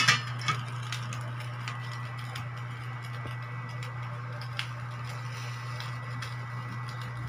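Stainless steel pot lid set on the pot with a metal clank, then a lighter clink about half a second later. After that a Hanabishi induction cooker heating the covered pot gives a steady low hum with scattered faint ticks and a faint thin high whine.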